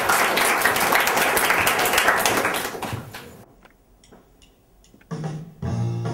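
Audience clapping and applauding. The applause fades out about three seconds in, and after a short lull the instrumental intro of a song starts near the end.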